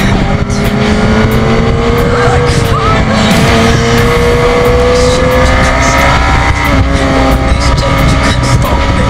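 BMW S1000RR's inline-four engine held at high revs on track, its pitch creeping slowly upward, with wind and road noise.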